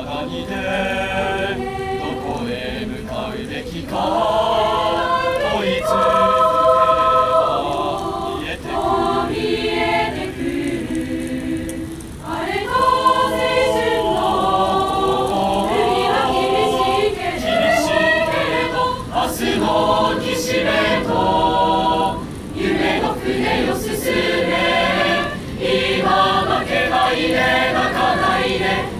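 Large high school choir singing a Japanese pop ballad in phrases, with brief pauses between lines.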